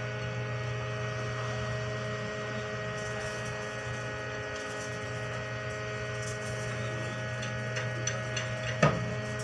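Steady hum of a tanker's machinery running during liquid cargo discharge, holding several fixed tones at an even level. A few light clicks come near the end, followed by a sharp knock.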